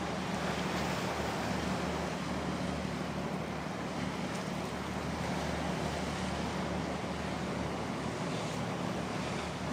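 Steady low drone of a large oil/chemical tanker under way, mixed with wind and the wash of sea water. The hum and the noise hold even throughout.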